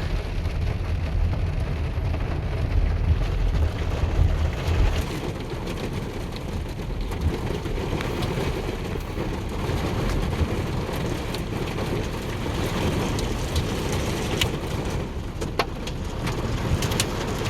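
Rain and small hail hitting the roof and windshield of a moving car, heard from inside the cabin over steady road rumble. Scattered sharp ticks of hailstones come more often near the end.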